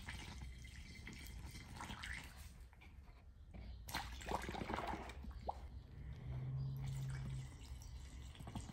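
Distilled water pouring from a plastic gallon jug through a plastic funnel into a lead-acid battery cell, heard as a faint trickle with drips and splashes. The cell is being topped up because its water had fallen to the top of the plates.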